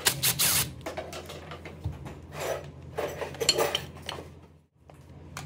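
Cordless drill-driver briefly running as it backs a screw out of a hedge trimmer's metal gear-case cover, followed by metal parts clinking and rattling as the cover is worked loose by hand.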